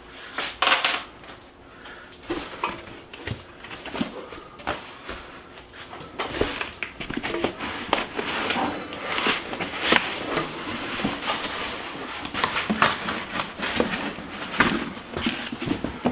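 Cardboard box and foam packing rustling and scraping by hand, with scattered clicks and light clinks of metal parts as a CNC router's aluminium frame is unpacked.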